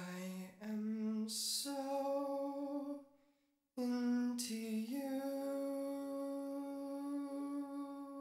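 A man's high voice singing slow, held notes unaccompanied, in two phrases split by a short break about three seconds in; each phrase steps up in pitch and ends on a long held note.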